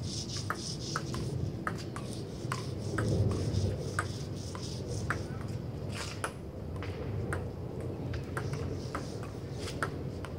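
Table tennis ball clicking against the table and the paddles in a steady rally, about two clicks a second.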